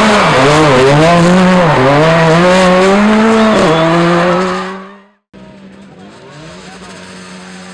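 Rally car engine revving hard close by, its pitch dipping and climbing again and again with throttle lifts and gear changes, then fading away about five seconds in. After a moment of silence an engine is heard again, much fainter, at fairly steady revs.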